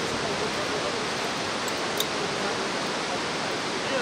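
Steady rushing of whitewater river rapids, with one short click about halfway through.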